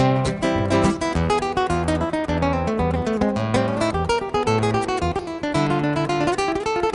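Background music: acoustic guitar played quickly, with plucked and strummed notes over low bass notes.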